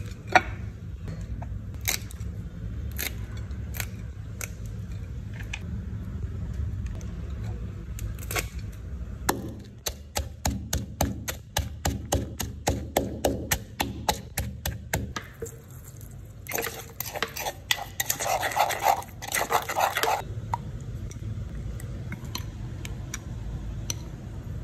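Wooden pestle pounding chillies and garlic in a clay mortar, a fast run of strikes about seven a second, amid other kitchen clatter of knocks and scraping. A low steady hum sits underneath at the start and near the end.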